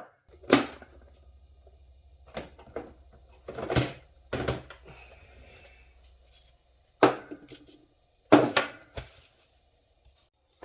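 Irregular sharp knocks and clunks, about eight, of LS V8 engine parts (pistons and their hardware) being handled and set down during disassembly. A faint low hum runs under the first half.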